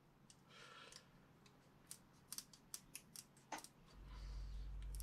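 Scissors snipping through a thin Lexan (polycarbonate) sheet: a run of faint, sharp snips in the middle. A low steady hum starts near the end.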